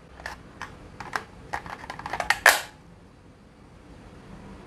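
Light clicks and taps of hard plastic as a cordless impact driver is handled over its plastic case: a dozen or so quick irregular clicks, ending in a short scuff about two and a half seconds in.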